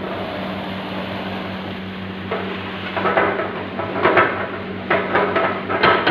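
Metal ladle clanking and scraping against a wok as it is stirred on a gas range, a run of quick strokes starting about three seconds in, over a steady burner and kitchen hum.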